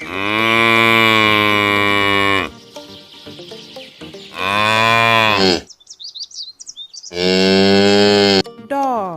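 Cow mooing three times, in long, drawn-out calls, the first the longest, with brief pauses between them.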